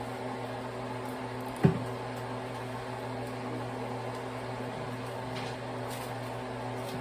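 Steady hum of a kitchen appliance's electric motor, with one sharp knock about one and a half seconds in.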